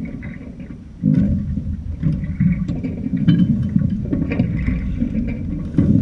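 Rushing water and wind noise from a sailing boat under way: a rough low rumble that gets louder about a second in, with small knocks and splashes through it.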